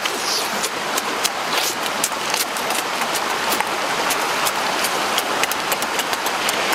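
A rocky stream rushing as a steady hiss, with frequent sharp clicks and smacks of eating grilled fish by hand.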